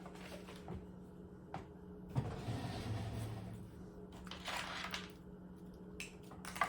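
Hand-tool and small-parts handling: a sharp knock about two seconds in, then a second or so of rustling and scraping, another short rustle a little later, and a few light clicks near the end, over a steady low hum.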